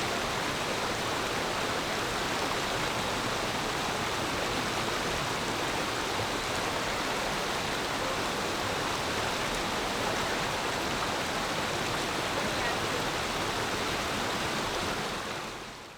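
Clear forest stream flowing steadily over stones, an even rush of water that fades out near the end.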